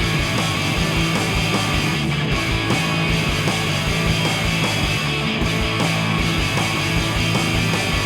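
Instrumental break of a garage-rock song, with no singing: distorted electric guitar and bass over drums keeping a steady, driving beat.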